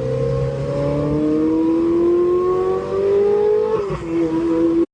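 Ferrari 458 Italia's naturally aspirated 4.5-litre V8 with its revs climbing slowly and steadily for about four seconds, then dropping back a little and holding before the sound cuts off. The engine has a misfire, which the mechanic puts down to an injector and bad fuel and expects to clear itself at high revs.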